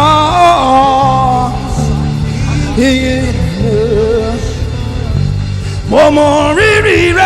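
Gospel worship song: a singer holds three long, wavering phrases over a band with a steady bass line.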